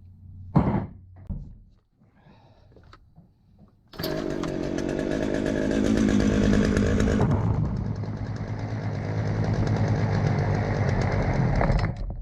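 Craftsman 36cc two-stroke chainsaw engine running after a few handling knocks, coming in suddenly about four seconds in. Its sound drops to a lower, duller note partway through, and it cuts off sharply just before the end. It is being test-run during carburetor adjustment on fresh fuel lines and a new primer bulb, and the owner says it isn't running right.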